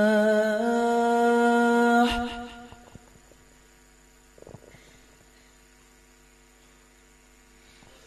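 A muezzin's voice holding a long, steady note of the dawn (fajr) call to prayer, ending about two seconds in and dying away in reverberation. A quiet pause follows before the next phrase, with one faint soft sound about four and a half seconds in.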